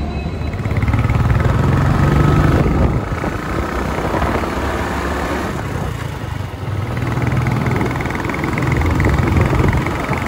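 Royal Enfield Himalayan motorcycle's 411 cc single-cylinder engine running on the move, with road noise. The engine note swells about a second in, falls back near three seconds, and builds again late on.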